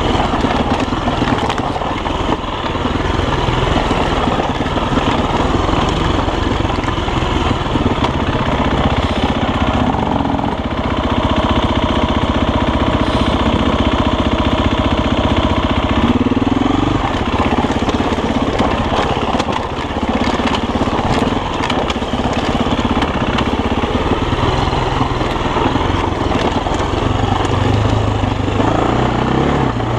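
Enduro dirt bike engine running under load on a rough off-road trail, its revs rising and falling as the rider works the throttle. The engine note holds steadier for a few seconds in the middle, then revs up sharply.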